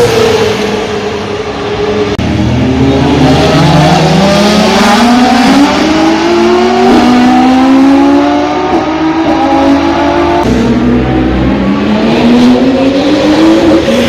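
High-performance race car engine accelerating hard on track. Its pitch climbs in repeated rising sweeps that drop back at each upshift. About ten seconds in, a second run starts and climbs the same way before the note falls near the end.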